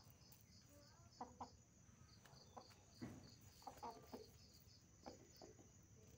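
Aseel chickens clucking quietly in short, scattered calls, a few clustered together about a second in and again around the middle. A steady, evenly pulsed cricket chirp runs underneath.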